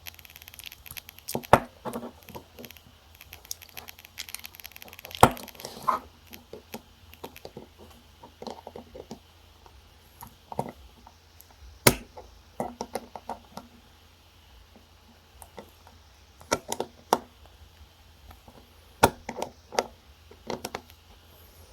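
Small metal tools clicking and scraping against a tiny alarm-clock movement while a conical pin is worked loose: irregular light clicks with a few sharper taps.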